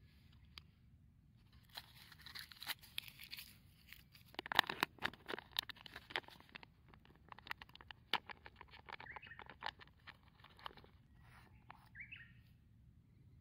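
Food packaging being handled: a butter wrapper peeled off, then a plastic pouch of sweetcorn crinkled and squeezed empty into the tin. The result is a run of crackling rustles that is loudest a little past the middle. A short bird chirp comes near the end.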